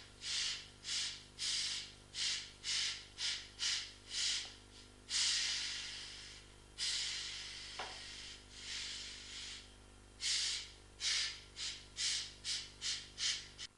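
Compressed nitrogen blown through air-conditioner heat-exchanger fins to clear dust, hissing in many short bursts with two longer blasts near the middle. A steady low hum runs underneath.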